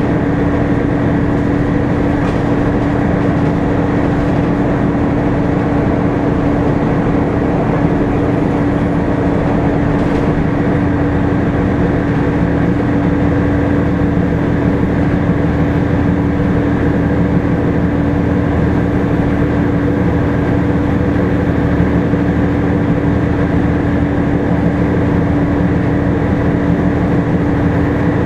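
Inside a moving Volvo B7TL double-decker bus: a loud, steady whine from the engine cooling fan, held at one pitch, over the running engine and road rumble.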